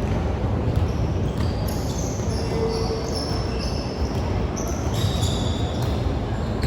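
Sneakers squeaking in short high chirps on a gym floor during a volleyball rally, with a few sharp knocks of the ball and the steady low rumble of a large hall underneath.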